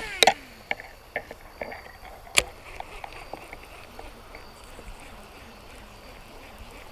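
Sounds of reeling in a hooked smallmouth bass: a string of sharp clicks and knocks from the rod and reel in the first two and a half seconds, the loudest about two and a half seconds in, then only a faint steady hiss.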